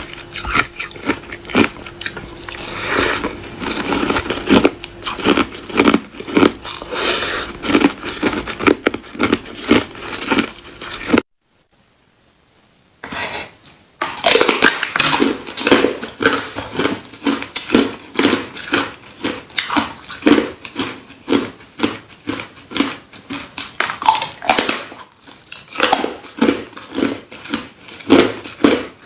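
A person biting and chewing hard ice close to the microphone: rapid, loud cracking crunches. They stop for about two seconds around the middle, then resume.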